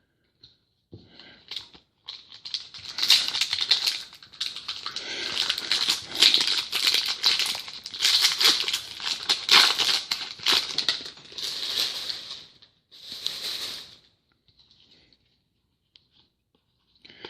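Trading-card pack wrapper crinkling and tearing in the hands, in a run of irregular crackles that stops a few seconds before the end.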